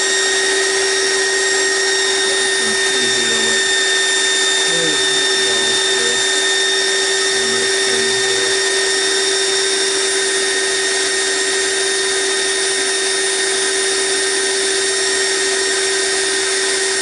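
GX CS3 high-pressure air compressor running with a steady, unchanging electric whine.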